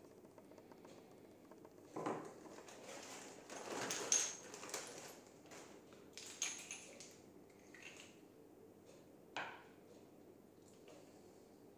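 Plastic bag rustling as small plastic inflator nozzles are handled, followed by a couple of light knocks as the nozzles are set down on a wooden desk.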